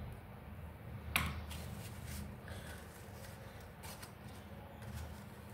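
Folded paper being handled and crinkling as a paper banana bunch is picked up, with one sharp crackle about a second in and a few softer rustles after, over a steady low hum.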